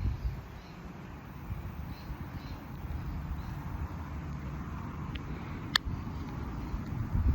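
Outdoor ambience: wind rumbling on the microphone, with faint high chirps repeating about twice a second and one sharp click near the end.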